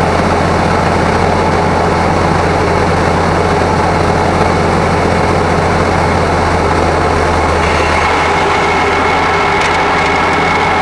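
Grain truck engine running steadily while driving. About three-quarters of the way through, the engine note changes: the low hum drops and a thin higher whine comes in.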